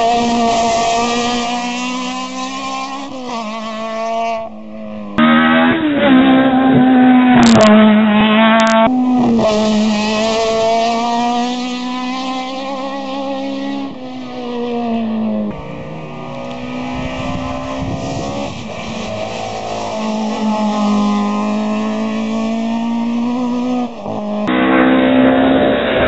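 Engines of classic rally-style competition cars driven hard up a hillclimb course, one after another. The engine note climbs and drops repeatedly with the gear changes.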